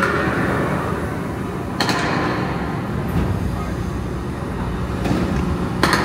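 Tour tram rolling along with a steady low rumble. Two sharp knocks, one about two seconds in and one near the end.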